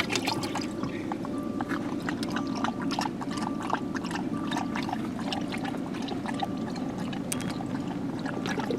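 Water trickling and splashing steadily, with many small irregular clicks and drips.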